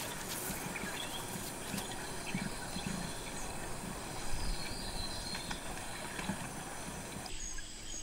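Outdoor ambience of a rainforest clearing: a steady faint hiss with scattered soft ticks and knocks and a few low animal sounds. Near the end it changes to a quieter, duller background.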